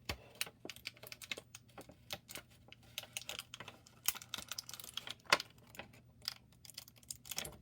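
Irregular clicking and crinkling of plastic toy packaging handled by hand as a small action-figure knife is worked loose from its taped-in tray, with one sharper snap about five seconds in.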